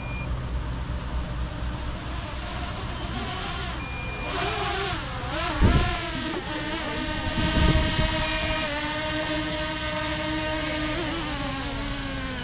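A motor vehicle engine rumbles low throughout. From a few seconds in, its note rises and wavers, then holds a steady drone for several seconds before easing down near the end. Two heavy thumps come in between.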